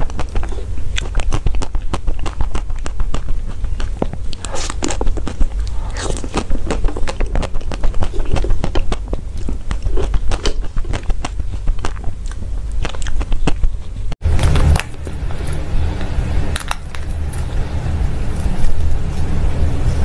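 Close-miked eating: biting and chewing dessert, heard as a dense run of crisp little clicks and crackles. About fourteen seconds in the sound cuts out for an instant, and a low steady rumble comes in under the eating.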